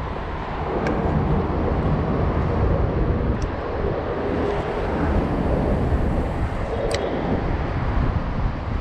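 Steady low rumble of road traffic on the bridge deck overhead, with a hiss of outdoor noise.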